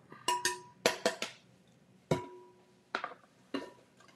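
Plastic food processor work bowl knocked and tapped against the rim of a glass mixing bowl to empty out freshly minced onion: about eight sharp, irregular knocks, several leaving a short ringing tone.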